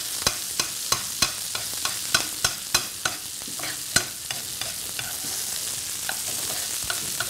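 Beef tenderloin medallions sizzling in hot butter in a frying pan while a metal spoon bastes them. The spoon clinks against the pan about three times a second for the first three seconds, then more sparsely, over a steady sizzle.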